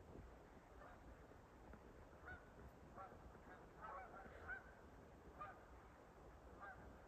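Faint bird calls: short pitched calls coming every second or so, with a quick cluster of several about four seconds in.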